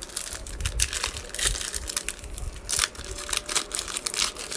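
Plastic trading-card pack wrapper crinkling, a run of irregular sharp crackles.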